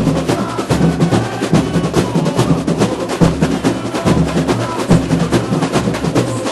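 Samba school drum section playing a batucada: deep bass drums pulsing under dense, fast snare and wood-block-like strokes, with no singing.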